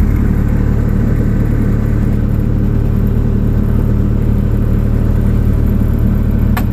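Bobcat S130 skid steer's four-cylinder non-turbo Kubota diesel running steadily, freshly started.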